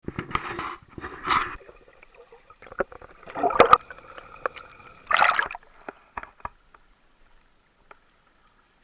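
Water splashing in four loud bursts, with smaller splashes and drips between, fading out over the last few seconds.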